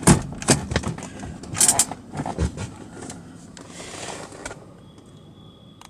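Clicks and knocks from a 2005 Mercedes-Benz E-Class's parking brake as it is released with its pull handle and set with the foot pedal: several sharp clicks in the first two seconds, then a duller thump about two and a half seconds in.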